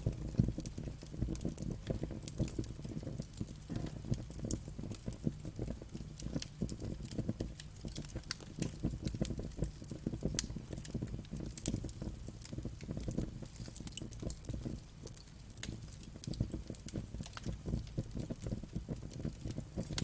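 Wood fire burning in a fireplace: a steady low rumble of flames with irregular small crackles and pops throughout.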